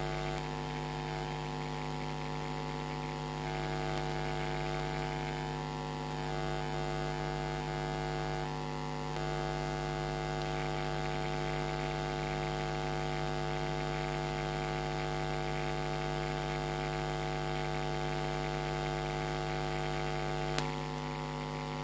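Steady electrical mains hum with many evenly spaced overtones, unchanging throughout, with a faint click near the end.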